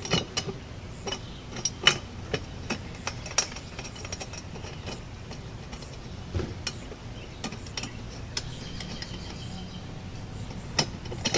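Irregular small clicks and light clinks of a glass globe being handled and fitted onto a metal outdoor light fixture.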